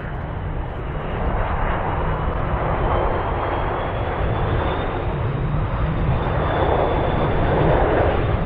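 Qantas Airbus A330-200's GE CF6-80E1 jet engines on final approach, their rumble growing steadily louder as the plane nears, with a faint high whine above it.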